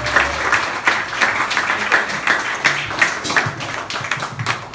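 Small audience applauding, a dense patter of hand claps that thins out and gets quieter toward the end.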